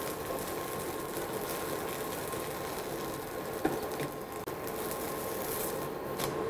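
Amboli, a fermented rice and urad dal pancake, sizzling steadily in a little oil on a hot nonstick tava as its second side cooks, with a couple of light clicks of a spatula about three and a half and four seconds in.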